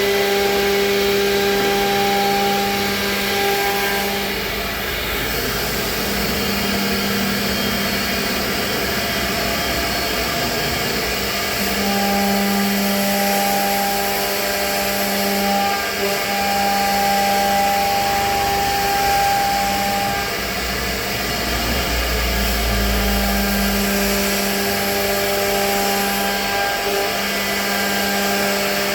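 CNC router spindle running and cutting into a WPC (wood-plastic composite) board: a steady machine hum over a cutting hiss, swelling and easing every few seconds as the cutter moves.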